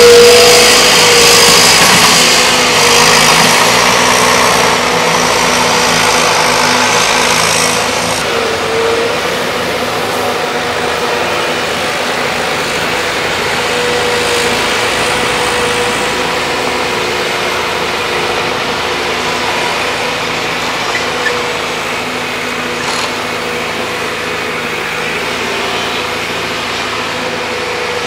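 Volvo excavators' diesel engines running under load, with a steady whining tone over the engine noise. It is louder for the first several seconds, then eases to a lower, even level.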